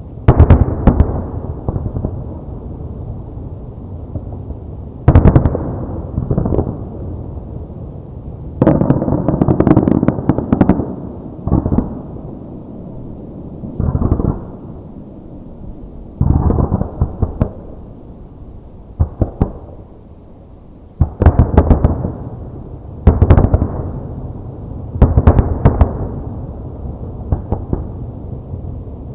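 Aerial fireworks display: shells bursting in rapid clusters of sharp bangs every few seconds, with a low rumble ringing on between the clusters.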